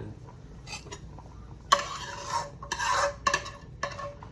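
A utensil scraping and stirring around a metal pan in a run of quick strokes that start a little under halfway through, with the pan ringing faintly. The strokes come as the beef juices are scraped out of the pan.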